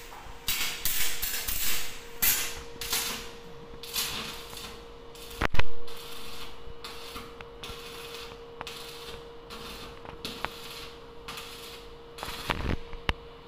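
A small electric wire-rope hoist goods lift working: its steel cage and pulley rattle and creak in short bursts over a faint steady hum, with one loud metallic knock about five and a half seconds in.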